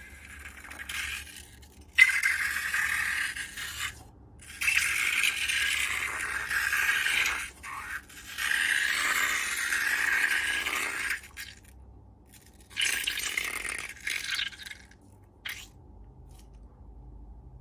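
Four bursts of scratchy, rattling scraping, each lasting two to three seconds with short pauses between, then a single sharp click near the end.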